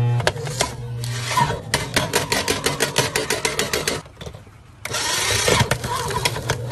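Electric paper shredder's motor running and its cutters crunching through a smartphone, with a fast train of sharp cracking clicks. The shredder cuts out briefly about four seconds in, then grinds on again.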